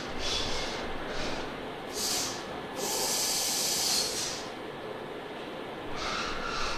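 CNC five-axis machining centre hissing in a series of short bursts, the longest lasting about a second and a half near the middle, over a steady low machine hum.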